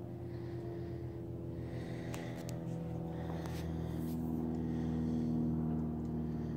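Water running through a Reef Synergy aquarium overflow box and down its Bean Animal drain pipes during a test-and-tune run: a steady low hum, with a few brief splashy gurgles between about two and four seconds in.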